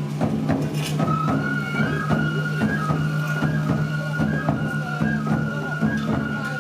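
Japanese festival music (matsuri hayashi): a flute plays a high melody in held notes over steady drumbeats, with a constant low hum underneath.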